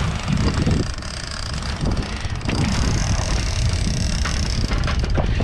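Wind rumbling on the microphone over the low drone of the boat's engines, with a faint steady high whine through most of it.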